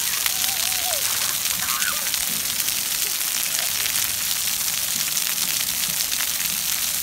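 Splash pad water jets spraying and spattering onto wet concrete: a steady hiss, with children's voices faintly in the background.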